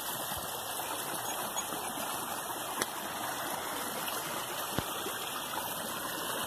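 Small forest river running steadily over rocks, a constant rushing of water, with a couple of brief knocks about halfway through.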